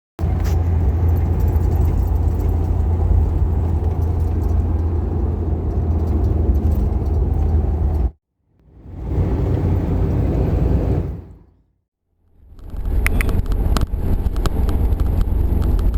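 A car driving, with a steady low rumble of engine and road noise. It breaks off suddenly about eight seconds in, returns briefly fading in and out, then comes back with clicks and rattles over it.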